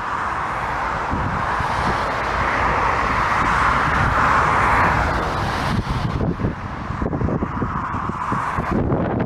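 Aircraft on a crosswind landing: a steady rush of engine noise that swells to its loudest about halfway through, over gusty wind buffeting the microphone.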